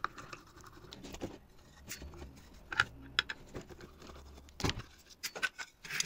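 Screwdriver turning out the screws of a vacuum cleaner motor's metal end bracket, then the bracket being lifted off and handled: light scraping with scattered sharp metallic clicks and knocks.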